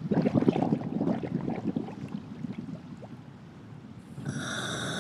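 Underwater bubbling and gurgling sound effect, strongest at the start and fading. About four seconds in, a steady electronic tone with several pitches starts and holds.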